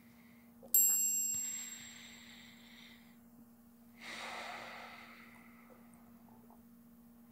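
Slow, audible breathing: two soft, hissy breaths a few seconds apart. A single bright metallic chime rings out sharply about a second in and fades within a second; it is the loudest sound here.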